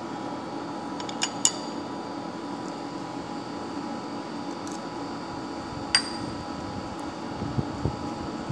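A cat eating, with soft irregular chewing sounds near the end, over a steady hum. A few sharp clicks sound about a second in and again around six seconds.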